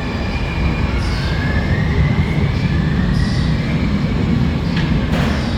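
BART subway train running through the underground station: a loud, steady low rumble with a thin whine that rises in pitch, and a short clatter near the end.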